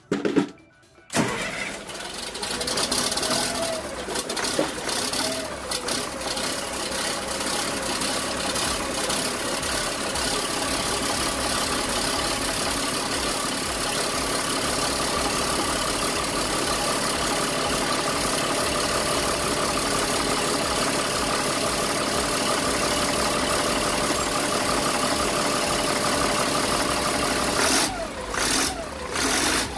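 Caterpillar 3116 mechanical diesel engine in an LMTV truck cranking and catching about a second in, then running at a steady idle. Its level dips and bumps briefly near the end.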